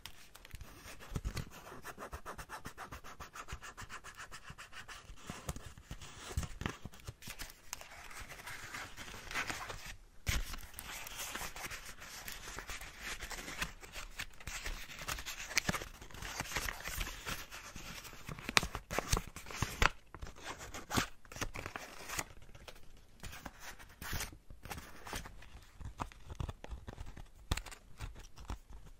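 Hands rubbing and crinkling the stiff plastic leaves of an artificial plant close to the microphone: a continuous rustling full of small crackles, with a brief pause about ten seconds in. Near the end a leaf is rubbed against the gravel-topped plant pot.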